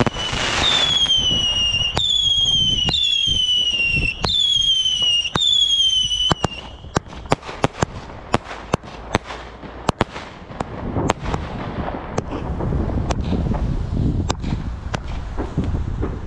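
Fireworks going off: about six whistling shots in quick succession, each a falling whistle about a second long, with sharp bangs among them. Then comes a dense run of crackling bangs, and a low rumble builds up in the second half.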